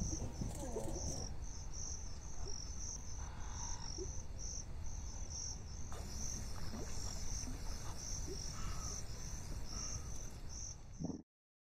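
Insects chirping: a high-pitched chirp repeated steadily about three times a second, over a low steady rumble. All sound cuts off about a second before the end.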